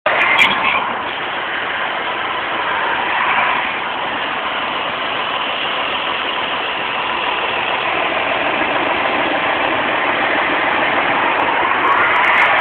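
John Deere tractor engine running steadily while working in the potato field, swelling briefly about three seconds in and again near the end.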